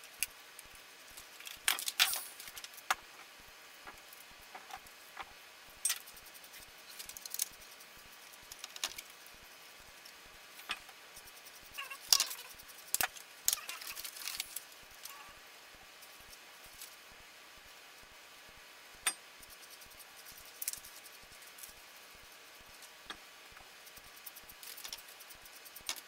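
Scattered clicks, taps and rustles of computer parts and their cardboard and plastic packaging being handled on a desk, the busiest stretches about two seconds in and around twelve to fourteen seconds in.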